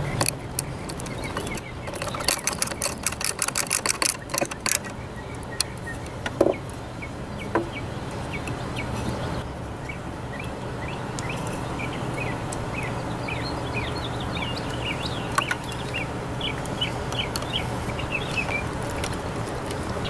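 Hand screwdriver driving screws into a pine strip, with a quick run of sharp clicks about two seconds in and a couple of single knocks after it. Later, many short chirps from birds sound repeatedly over a steady low hum.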